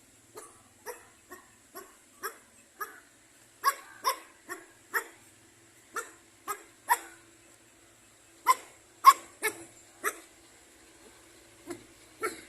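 A dog barking repeatedly: about twenty short, sharp barks, roughly two a second, with a couple of brief pauses.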